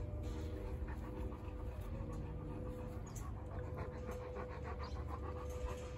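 Labrador retriever panting, with a steady low rumble underneath.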